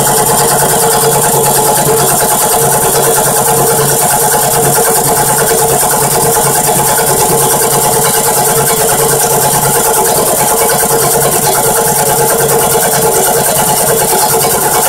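Homemade air compressor pump, driven by a 450-watt 24-volt DC motor, running steadily under load as it builds tank pressure from about 85 toward its 100 psi pressure-switch cut-off.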